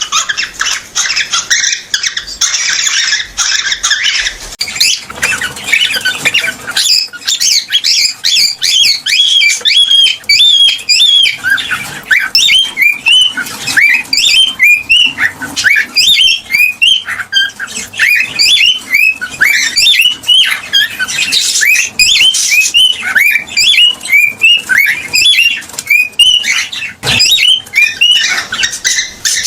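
Cockatiel chirping and whistling: a fast, unbroken run of short, high chirps, several a second.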